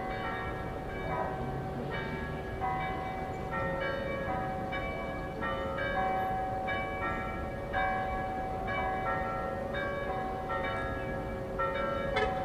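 Church bells ringing together in a festive peal, heard from the cathedral bell tower with the city's other towers joining in: strokes overlap in a steady, uneven cascade of ringing tones. A sharp knock sounds shortly before the end.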